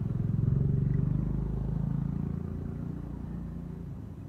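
A motor vehicle's engine going past, loudest about half a second in and then fading away.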